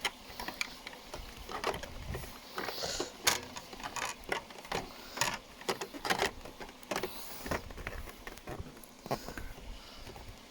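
Irregular light clicks and knocks of hands handling and fitting a plastic panel and wiring into place on a motorcycle.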